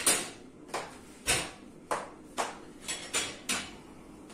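Sharp knocks and clinks of kitchen containers being handled off to the side, about eight irregular strikes, with one heavier thud a little over a second in.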